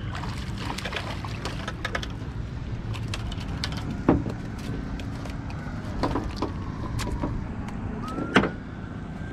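A small bluefish being reeled alongside a boat and landed: scattered sharp clicks, splashes and knocks over a steady wash of wind and water noise, with the two loudest thumps about four seconds in and near the end.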